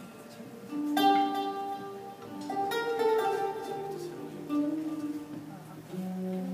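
Acoustic guitar playing a slow bossa nova introduction: plucked chords and single notes left to ring, starting about a second in.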